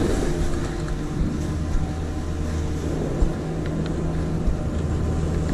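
Wind rushing over an action camera's microphone with skis scraping over packed snow during a downhill run, a steady low rumble with one brief knock about three seconds in.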